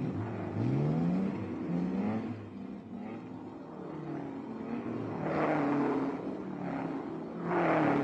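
Racing car engines accelerating hard, the pitch climbing twice in quick succession early on as they pull up through the gears. Two loud swells follow, near the middle and at the end, as cars pass at speed.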